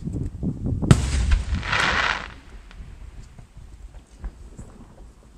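Aerial firework shells bursting: low rumbling pops, a sharp bang about a second in, then a brief hissing crackle. After that it goes quieter, with scattered faint pops.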